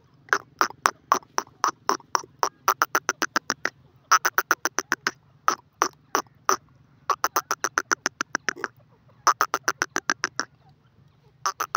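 A francolin (teetar) calling: runs of rapid, sharp short notes, about eight a second. Each run lasts one to three seconds, with brief pauses between them.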